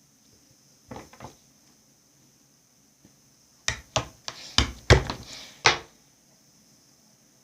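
Two soft knocks about a second in, then a quick run of about seven sharp knocks and clatters of hard objects over two seconds.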